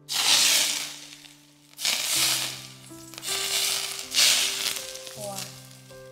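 Hot oil poured from a wok sizzling as it hits chopped chilies and herbs on a steamed fish, in four loud bursts a second or so apart. Soft instrumental background music plays underneath.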